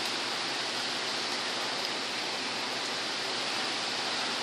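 Heavy rain pouring down steadily, an even, unbroken hiss.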